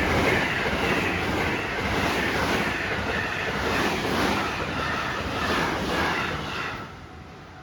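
Train running past on the rails: a steady, broad rushing roar with faint wavering high tones over it, falling away about seven seconds in.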